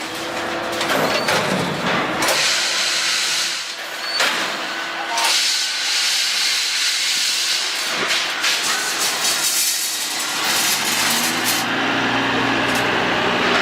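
Rebar spiral-forming machine running: a steady hiss with intermittent sharp metallic knocks, and a low motor hum that comes in near the end.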